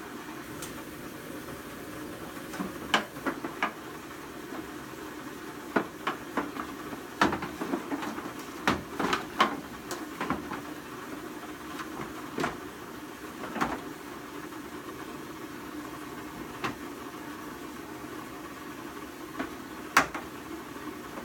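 Irregular knocks, clunks and clicks of hoses and a pressure washer being moved around the bare metal floor of a cargo van, over a steady low hum. The knocks come in a busy run through the middle, with one sharp bang near the end.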